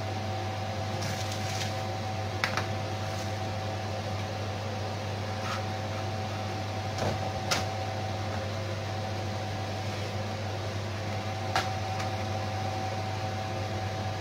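A steady electrical hum, with a few sharp taps of a kitchen knife on a plastic cutting board, a couple close together midway.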